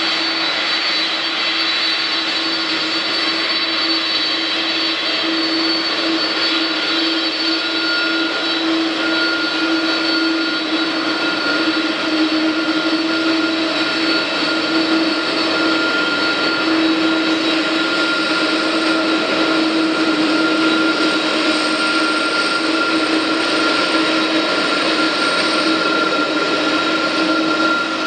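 Boeing 747-400 jet engines running at low taxi power as the airliner rolls past close by: a steady rushing noise with several held whining tones, with no rise in power.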